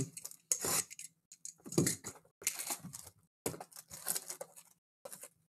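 Trading card box being opened and its foil packs pulled out: a run of short crinkling, tearing rustles, about five of them.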